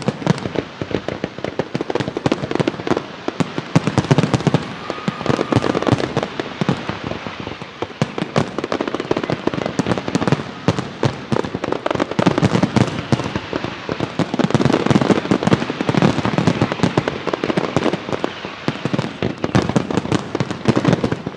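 Fireworks display: a dense, unbroken barrage of aerial shell bursts and crackling, many bangs in quick succession.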